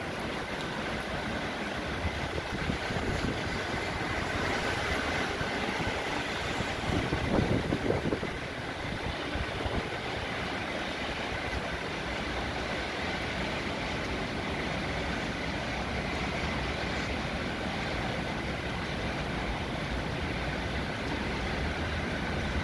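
Heavy rain falling as a steady hiss, mixed with the rumble of traffic on the wet roads below; a brief louder rush about seven seconds in.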